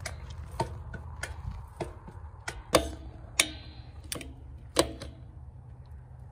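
Ratchet-type fence stretcher on barbed wire, its grips catching tooth by tooth on the bar as the wire is pulled tight. It gives a sharp metal click about every two-thirds of a second through the first five seconds, some clicks louder than others, over a low steady rumble.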